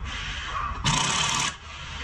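Hand ratchet wrench clicking rapidly as a strut-to-knuckle bolt is turned, with a louder run of clicks for about half a second near the middle.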